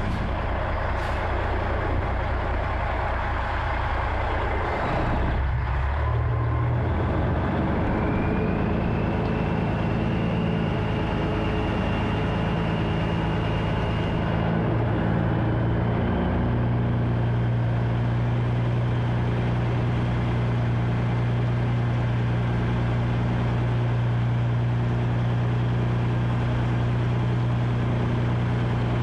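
Peterbilt semi truck's diesel engine running as the truck pulls slowly through the yard with an empty flatbed, its pitch shifting about five seconds in and then holding steady. A thin high whistle rises slowly in the middle.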